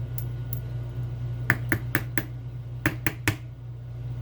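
About seven small, sharp metallic clicks and taps in quick succession, about halfway in: tools and tightly fitting pins being worked out of a Schlage Primus lock cylinder.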